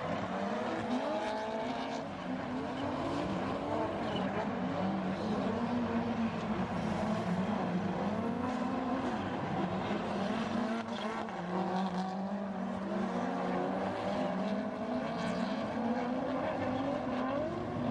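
Several drift cars' engines revving hard, their pitch rising and falling over and over as the cars slide through the course in tandem. Tyres are squealing under the drift.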